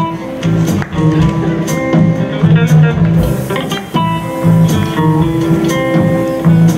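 Live jazz band: a guitar plays a melodic line over upright bass and drums, with regular cymbal strokes.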